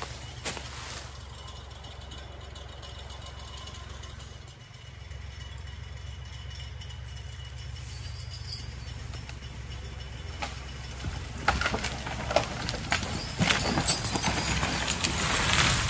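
An engine running steadily while a winch pulls on a hung-up beech tree, with a run of sharp cracks and snaps in the last few seconds.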